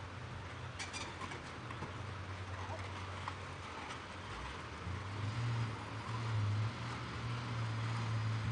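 An engine running with a steady low hum, getting louder about five seconds in, over a background hiss.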